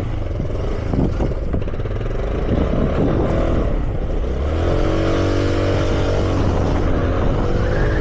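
A motor vehicle engine running, its pitch dipping and rising about a third of the way in, then holding steady.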